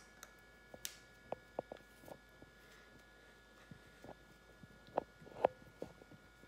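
Quiet room tone: a faint steady electrical hum with a few scattered soft clicks and taps, the loudest about five seconds in.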